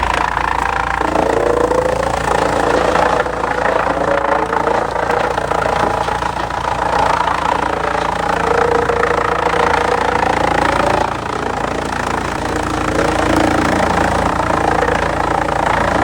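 Heavy machinery running steadily, with an engine-like drone whose mid-pitched tones waver up and down.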